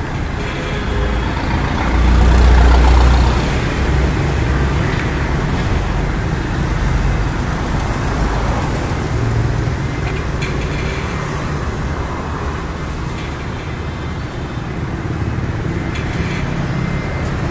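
Street traffic of motorbikes and cars passing on a busy city road: a steady noise of engines and tyres that swells for a moment about two seconds in as a vehicle passes close.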